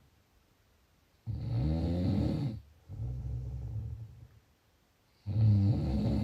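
Snoring in slow cycles with pauses between breaths. A loud snore with a wavering pitch starts about a second in, followed by a quieter breath, and another loud snore begins near the end.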